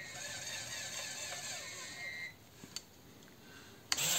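Small electric motor of a toy-brick pneumatic pump whining steadily for about two seconds, then stopping. A couple of light clicks follow, and just before the end a louder motor whir starts abruptly.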